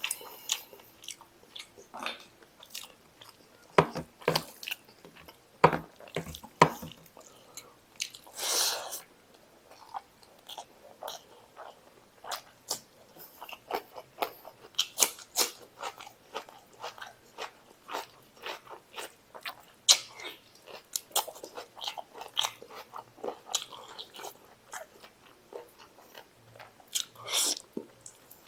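Close-miked chewing and biting of mutton masala and rice, eaten by hand: a steady, irregular run of wet smacks and clicks. Two longer, noisier mouth sounds come about eight seconds in and near the end.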